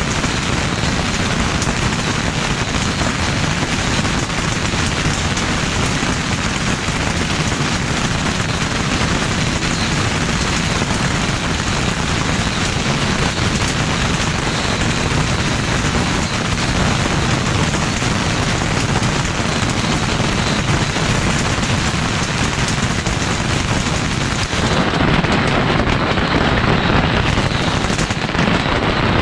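Beehive-rack bottle rockets and firecrackers going off in a dense, unbroken barrage, their rapid pops merging into one continuous crackle. It gets a little louder near the end.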